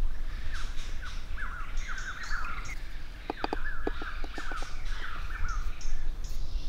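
A bird calling in a run of short, repeated sweeping notes, over a steady low rumble. A quick run of light clicks comes about halfway through.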